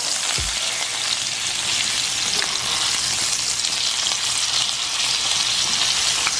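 Chicken breasts frying in butter and oil in a cast-iron skillet: a steady sizzle as the pieces are turned over with tongs.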